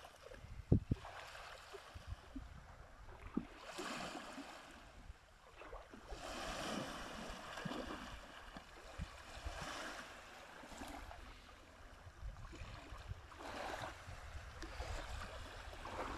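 Small waves washing onto a sandy shore, swelling and fading several times, with wind rumbling on the microphone. There is a single sharp thump about a second in.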